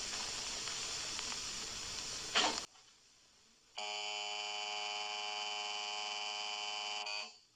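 Electric signal buzzer giving one steady, even buzz for about three and a half seconds, then cutting off. It is the signal for the child to start shooting at the targets. Before it there is a steady hiss, then a second of silence.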